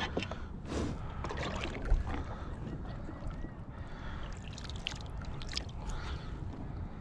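Scattered clicks and knocks of a plastic fish measuring board being handled on a kayak, with one louder thump about two seconds in, over a low steady rumble.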